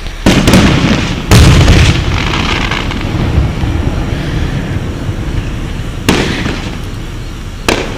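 Aerial fireworks bursting: four booms, the loudest about a second in and two more near the end, each followed by a long rolling rumble as the bangs echo off the surrounding hills.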